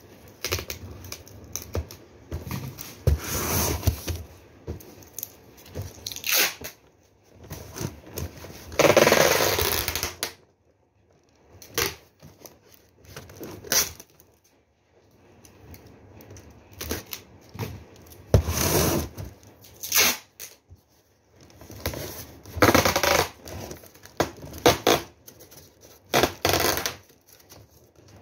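Adhesive tape being pulled off the roll in several separate ripping bursts, the longest about nine seconds in, with cardboard being handled and scraping in the quieter gaps.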